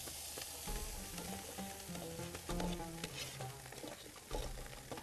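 Metal ladle scraping and knocking in a large aluminium pot as cooked rice is scooped into a metal colander, with a few sharper clinks about two and a half seconds in and again near the end. A steady hiss runs under it, and background music plays.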